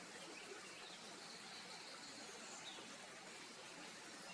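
Faint, steady rush of running water pouring out of a drainage dike, with a few faint bird chirps over it.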